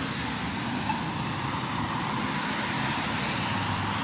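Steady road traffic noise at an intersection, with one short beep from a Polara iNS accessible pedestrian push button about a second in.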